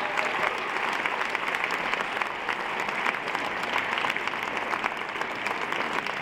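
Concert audience applauding steadily: dense, even clapping.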